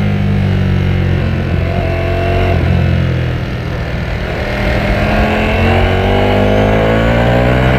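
Ducati Panigale V4S's V4 engine accelerating under load, its note rising. Revs fall back about three seconds in, then climb again and drop sharply near the end, as at a gear change.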